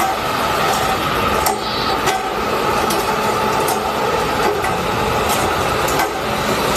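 Toy RC truck's small electric motor and gears whirring steadily as it drives, with scattered light clicks and knocks.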